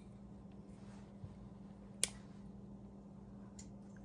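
A single sharp snip about two seconds in: fluorocarbon leader line being cut with a small cutter, with a softer tick a little before it.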